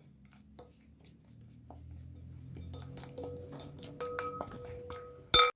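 A spoon stirring a mixture in a bowl, with faint scraping and clinks against the sides that leave a short ringing tone, and one sharp, louder clink near the end.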